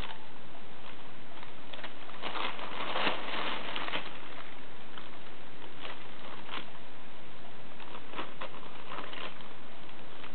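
A bag rustling and crinkling as a cat pushes its head into it and shoves it about, in scattered spells of crackling, busiest about two to four seconds in.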